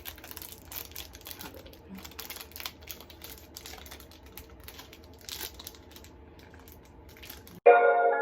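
Faint crinkling of plastic wrapping and many light clicks as candy and decorating pieces are handled. Near the end, music with bell-like mallet notes cuts in suddenly and much louder.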